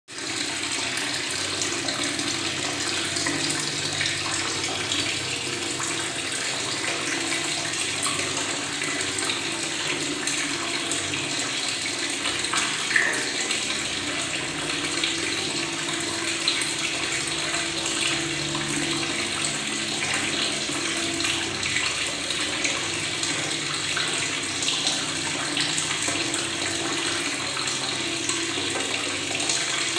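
Tap water running steadily and gurgling as it makes bubbles, with one brief louder blip about halfway through.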